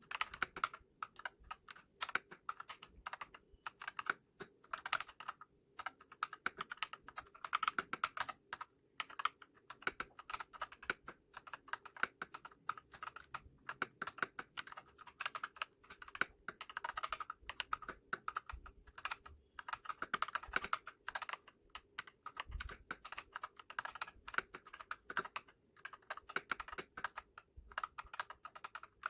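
Typing on a Redragon K596 Vishnu mechanical keyboard with Akko CS Lavender Purple tactile switches and HyperX PBT pudding keycaps: a fast, continuous run of keystroke clacks, with a few brief pauses.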